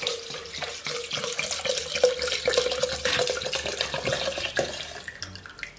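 Homemade spirit poured from a glass bottle into a glass blender jar: a steady stream of liquid splashing and gurgling, tapering off near the end.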